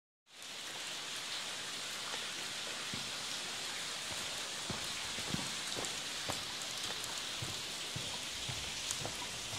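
Steady hiss of falling water, like rain pattering, with a few soft knocks scattered irregularly through it.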